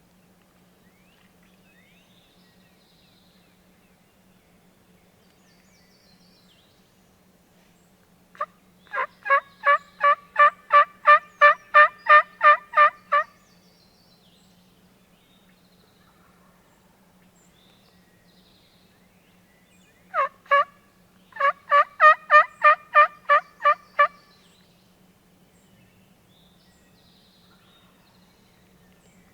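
Two series of loud, evenly paced wild turkey yelps, each a run of a dozen or more notes at about three a second, the second starting about twelve seconds after the first, with one or two lead-in notes before each run.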